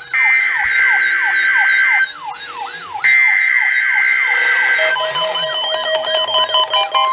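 NOAA Weather Radio weekly test: the SAME digital header plays as long two-tone data bursts about a second apart, under a repeating rising siren-like alarm sweep. About five seconds in, steady alarm tones take over, the start of the warning alarm.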